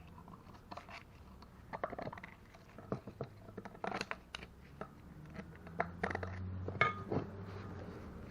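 Small metal parts being handled and set down: irregular clicks, clinks and scrapes, with one brief ringing metal clink about seven seconds in, over a low steady hum.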